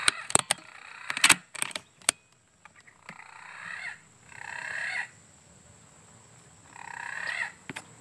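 Sharp clicks and knocks from the air rifle being handled in the first two seconds, then a bird calling three times, each call about a second long.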